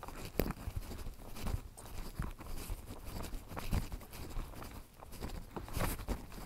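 Hiker's footsteps and trekking-pole tips knocking on wooden bog-bridge planks: an irregular series of short thuds and clicks, several a second, at a walking pace.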